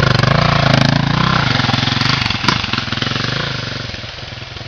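KTM dual-sport motorcycle engine revving as the bike pulls away, then fading as it rides off up the trail. A single sharp click is heard about halfway through.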